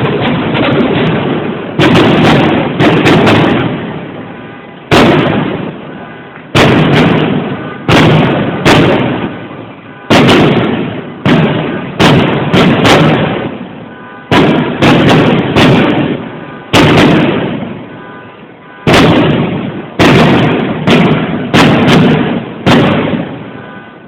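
Aerial fireworks shells bursting overhead, about twenty loud booms at irregular intervals, each followed by a long rolling echo.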